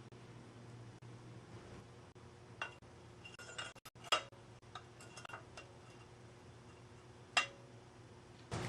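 Scattered light metallic clinks and ticks, a handful spread over several seconds, of bicycle fork bearings and their small steel parts being handled while they are cleaned and greased.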